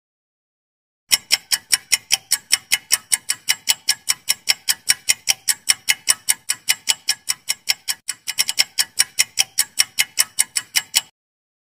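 Clock-ticking sound effect for a quiz answer timer: sharp, rapid ticks, about five a second. They start about a second in, stumble briefly about two-thirds of the way through, and stop abruptly shortly before the end.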